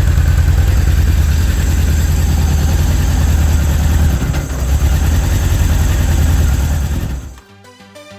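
Honda CB1000 Super Four's inline-four engine running steadily with a low rumble, fading out near the end.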